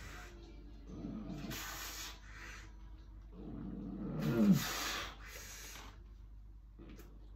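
A man breathing hard and straining while bending a horseshoe by hand: forced, noisy breaths, the loudest about four seconds in turning into a strained grunt that falls in pitch.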